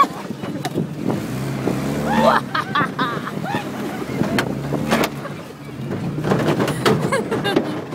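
Car engine running at low speed, heard from inside the cabin while driving over a dirt lot, with occasional knocks and brief voices in the background.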